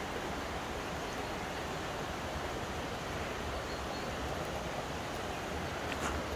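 Steady rushing of a shallow river flowing over stones, with low wind rumble on the microphone and a brief click near the end.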